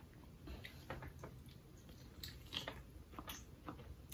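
A person chewing and biting food from a sauced seafood boil: faint, irregular mouth smacks and clicks.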